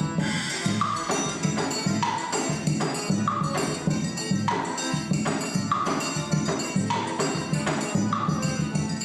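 Forró trio playing together: a sanfona (button accordion) carrying the melody over the steady beat of a zabumba bass drum and the continuous ringing strikes of a triangle.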